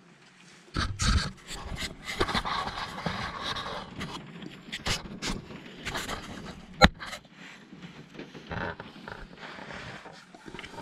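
Handling noises: irregular knocks, scrapes and rustles as the camera is moved and set down, with a loud bump about a second in and a sharp click about seven seconds in.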